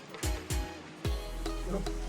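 Background music: short plucked notes over a few deep kick-drum hits, with a sustained bass coming in about a second in.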